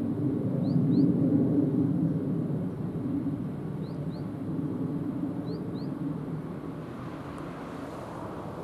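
Low rumble of an electric train running away down the line, loudest about a second in and slowly fading. A bird chirps three times, each a quick pair of short rising notes.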